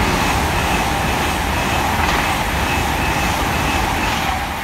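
Great Western Railway Class 802 bi-mode train passing through at speed: a loud, steady rush of wheels on rail and air, with a faint high whine on and off, beginning to die away near the end as the last coaches go by.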